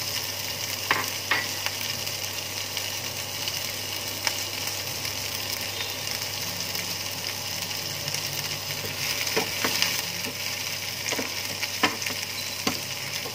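Chopped scallions sizzling in hot fat in a frying pan, a steady hiss. A wooden spatula clicks and scrapes against the pan a few times, most in the last few seconds as it stirs them.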